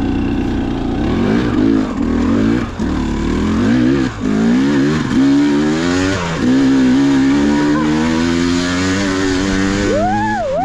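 Two-stroke dirt bike engine under riding, its pitch rising and falling with the throttle. It holds a steadier note for a few seconds in the middle, then gives one quick rev near the end.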